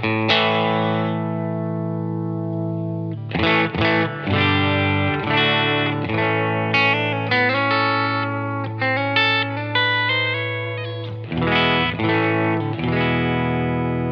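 Telecaster-style electric guitar played through an optical compressor pedal: chords ring with long, even sustain, with a new chord struck about three seconds in, a run of single-note licks in the middle, and two more chords struck near the end that ring on.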